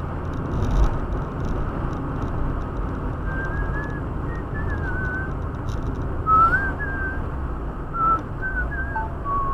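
A person whistling a wandering tune in short gliding phrases, starting about three seconds in, over the steady drone of a moving car's road and engine noise.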